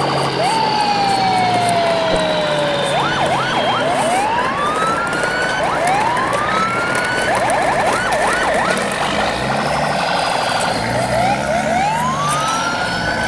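Sirens sounding, with slow rising and falling wails and quick yelping runs overlapping, over a steady noisy rumble.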